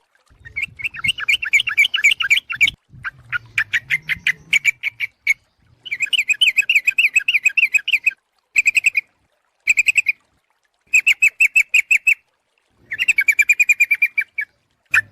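Yellow-vented bulbul (trucuk) chattering: fast runs of sharp, bubbling notes in bouts of one to two seconds, broken by short pauses. It is a lure recording, played to call wild bulbuls in.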